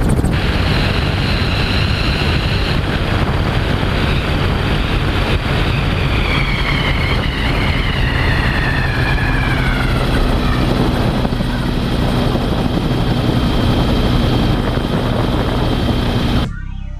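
AutoGyro Calidus autogyro's engine and pusher propeller running steadily with wind rush on the landing run, while a high whine falls steadily in pitch midway through. The sound drops away suddenly near the end.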